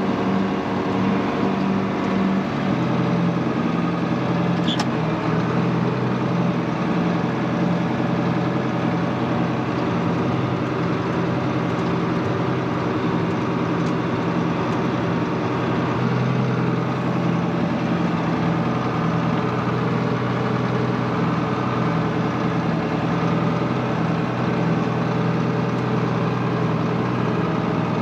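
John Deere 4440's six-cylinder turbo diesel engine running steadily, heard from inside the tractor cab; its note dips slightly about two and a half seconds in.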